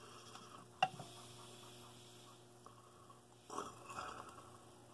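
Faint sounds of a blood orange being peeled by hand: a sharp snap about a second in, then a short burst of tearing, rustling peel a little past the middle.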